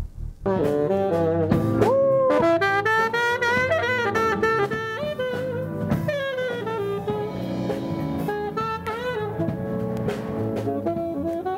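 Jazz music with a saxophone playing a sliding melody over a drum kit, starting abruptly about half a second in.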